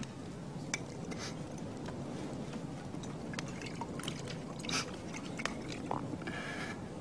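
Quiet room ambience: a low steady rumble with scattered small clicks and taps, and a couple of brief rustles near the end.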